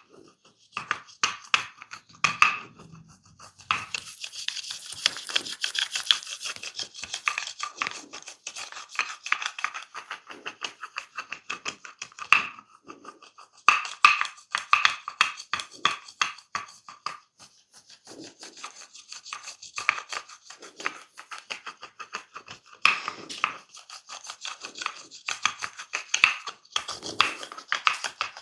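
Head massage: hands working fast over the scalp and hair in quick series of taps and scratching strokes, with a denser stretch of rubbing a few seconds in and short pauses between bouts.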